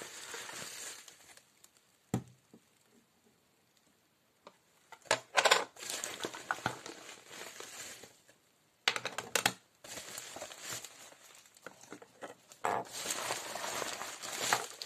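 Plastic packaging and bubble wrap crinkling in bursts, with pauses between. A few sharp clicks and knocks come as small cosmetic items are set down on a table.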